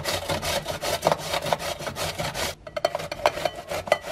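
Zucchini being grated on a stainless-steel box grater over a glass bowl: quick, even rasping strokes. About two and a half seconds in the strokes turn quieter and sparser, with sharper clicks.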